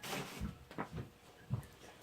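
Faint handling noise: a short rustle at the start, then a few light knocks as tools and parts are moved about.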